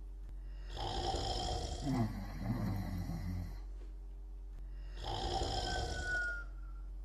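Snoring: two long snoring breaths, the first rattling and longer, the second about four seconds later and ending in a short falling whistle.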